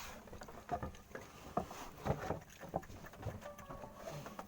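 A handful of irregular short knocks and thumps, about six spread over the few seconds, over faint background noise.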